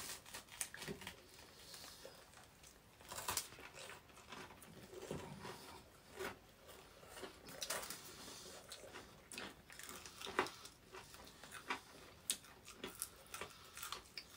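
Faint chewing and biting of food, with irregular small crunches and clicks.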